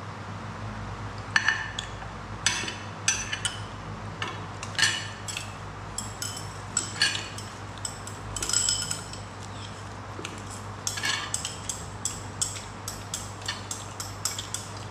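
Spoon and chopsticks clinking and scraping against a plate and bowl during a meal: many short, irregular clinks throughout.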